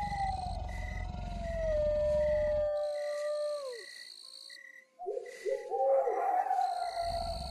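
Spooky sound-effect soundscape: a long howl that slides slowly down in pitch, short wavering yelps about five seconds in, then a second long howl. Under it run a low rumbling drone, which drops out in the middle, and a steady high beep about twice a second.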